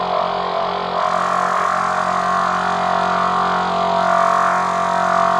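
Dark cinematic horror ambience: a steady, layered drone of low sustained tones under a hissing wash, swelling slightly about a second in.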